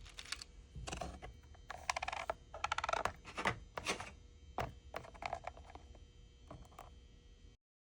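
A run of irregular clicks, taps and short rustles of handling, over a faint steady hum; the sound cuts off abruptly near the end.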